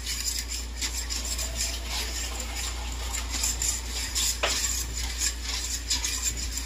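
A utensil stirring a thin sauce of soy sauce, seasoning and water in a nonstick frying pan, scraping and clicking against the pan in quick repeated strokes, with one sharper clink about four and a half seconds in.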